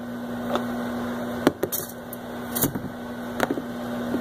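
Small plastic toy figure being flicked and clattering onto a granite countertop, a few scattered clicks and knocks, the loudest about a second and a half in, over a steady low hum that drops out for a moment in the middle.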